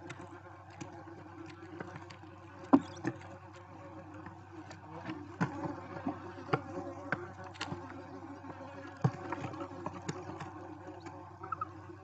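A steady low buzz fills the barn owl nest box, with scattered clicks, taps and scuffs as the owls shift about on the nest floor close to the microphone. There is one sharp knock about three seconds in and another about nine seconds in.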